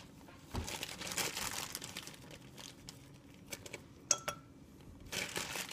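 A plastic bag of frozen mixed berries crinkling as it is handled. Around four seconds in there are a few sharp clicks, one with a short ring, as frozen berries drop into a glass.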